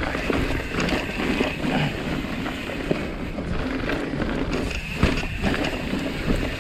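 Mountain bike riding down a dirt trail: tyres rolling over dirt and roots, the bike knocking and rattling over bumps, with wind on the microphone.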